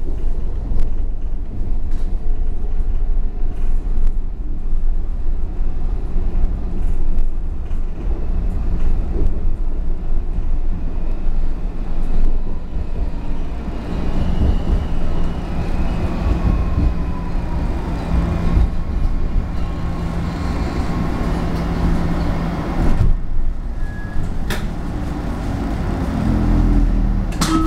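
Washington Metrorail train heard from inside the car: the steady rumble of wheels on rail as it runs, then slows into a station, with a faint motor whine falling in pitch as it brakes.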